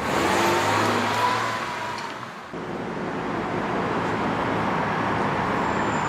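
A car running with steady road and traffic noise; the sound dips briefly and changes about two and a half seconds in.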